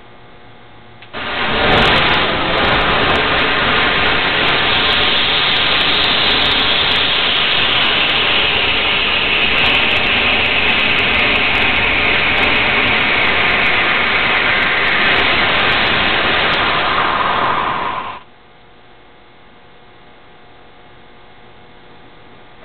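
Pyrogenic rocket-motor igniter burning: a loud, steady rushing hiss that starts suddenly about a second in, with scattered sharp crackles. It runs for about seventeen seconds and then cuts off abruptly.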